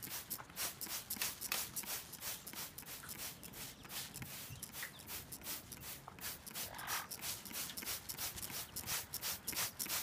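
Blue-fronted Amazon parrot flapping and shaking its wet wings while bathing in a water spray: quick, repeated rustling flutters of feathers, several a second.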